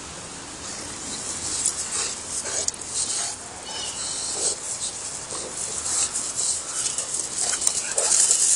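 Blue cane corsos play-wrestling on grass, with a few short dog noises over a steady high hiss.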